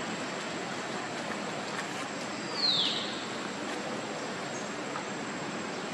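Steady outdoor background hiss, with one short high-pitched call that falls in pitch about two and a half seconds in.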